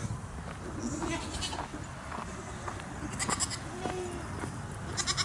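Goats bleating, three short wavering bleats about a second in, past three seconds and near the end.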